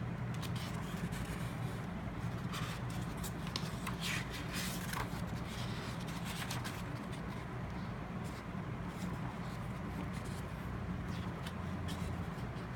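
Paper planner being handled, with short scrapes, rustles and light clicks of pages and cover, busiest in the first half, over a steady low hum.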